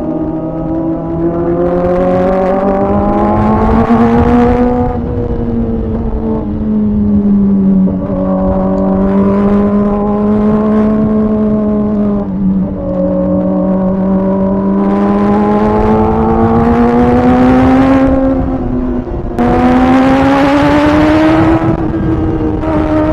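Kawasaki ZX-4RR's inline-four engine running hard, heard from the bike itself, its pitch rising and falling with the throttle, with brief breaks about five, eight, twelve and nineteen seconds in. Wind and road rush runs underneath.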